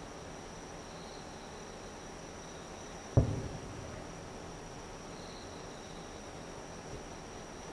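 One distant fireworks shell bursting: a single sharp boom about three seconds in, trailing off in a short rolling echo. A steady high insect trill runs underneath.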